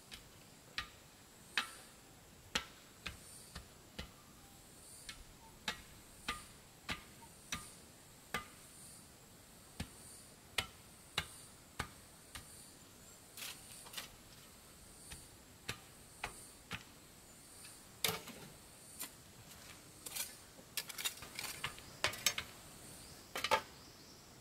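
Sharp, light taps or knocks at irregular intervals, about one every half second to a second, bunching into a quick run of taps near the end. Behind them a faint high chirp repeats at an even rhythm.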